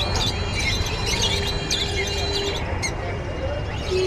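Many caged pet birds chirping and tweeting at once, a dense overlapping chatter of short calls. A steady low hum comes in from about a second in to halfway through, and again near the end.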